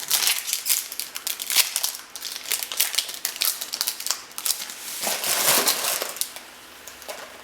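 Trading-card pack wrapper crinkling and crumpling in the hands, a run of crackly rustles that dies down near the end as the new pack is opened.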